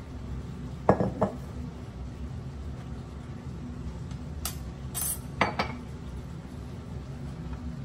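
Ceramic mug knocking and clinking on a stainless steel kitchen scale and countertop as it is handled and set down. There are two sharp knocks about a second in, a brief scrape around four and a half seconds, and two more knocks a little after five seconds, over a steady low hum.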